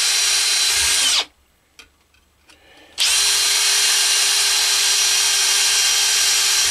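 Power drill with a small bit drilling pilot holes through stacked copper discs held in a vise: a steady high whine. It winds down and stops about a second in, is off for about two seconds with a few small knocks, then spins back up and runs on.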